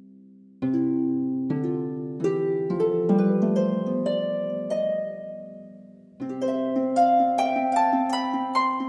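Background instrumental music: a melody of plucked notes over held lower notes. It comes in about half a second in, fades away, and returns about six seconds in.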